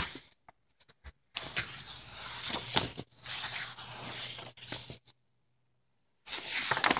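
Paper rustling and sliding as the pages of a picture book are turned and handled, in a long stretch and again briefly near the end.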